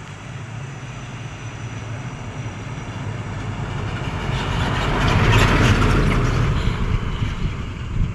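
Heavy truck driving past on a hill road: the engine rumble and tyre noise grow louder, peak about five and a half seconds in, then fade.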